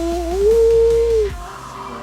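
A man's long, excited held shout of "yo", one sustained note that steps up in pitch partway through and breaks off a little over a second in.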